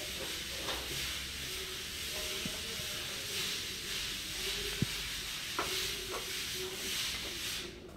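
Steady background hiss with a few light clicks and taps of plastic Play-Doh tools and molds being handled on a table.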